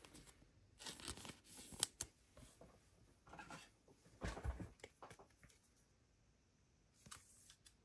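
Faint rustling and scraping of a trading card being slid into a thin plastic sleeve and cards being handled, with a few light clicks.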